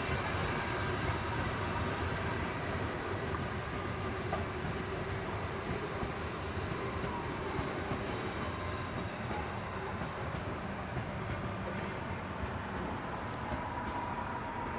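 Train rolling along the tracks, a steady rumble that eases off a little toward the end.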